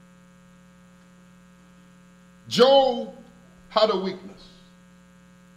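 Steady electrical mains hum, with two short bursts of a man's voice about halfway through.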